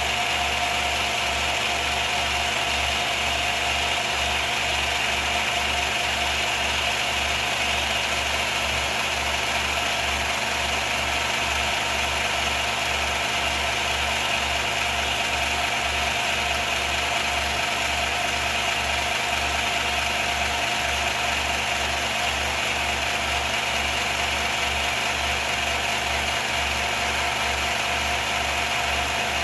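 Film projector running steadily: a continuous mechanical hum with a low pulse about twice a second.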